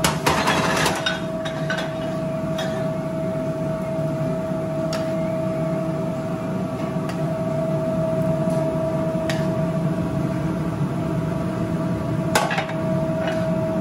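Metal utensils scraping and clinking against a pan and a serving dish as mac and cheese is spooned out, with a scraping burst in the first second, scattered light clinks and one sharper clank near the end. A steady kitchen hum with a constant tone runs underneath.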